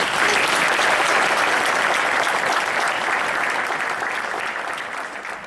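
Audience applauding: many hands clapping at once, starting abruptly, holding steady and then slowly fading near the end.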